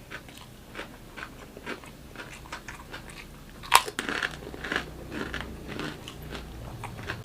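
Close-miked chewing of crunchy food: a run of small crackly crunches with one loud crunching bite about four seconds in.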